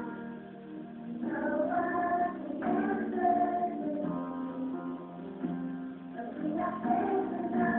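Music with a sung melody over instrumental accompaniment.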